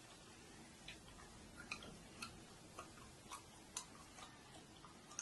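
Near silence: faint room hiss with about ten small, irregularly spaced clicks.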